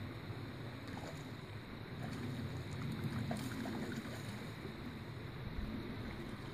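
Creek water running steadily with wind rumbling on the microphone; a hooked brown trout splashes at the surface about halfway through.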